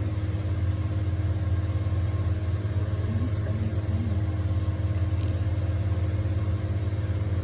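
A steady low mechanical hum, even and unchanging, like an idling engine or a running machine.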